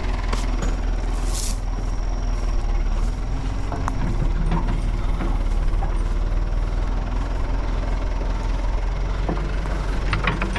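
Backhoe's diesel engine running steadily, with a few faint clanks.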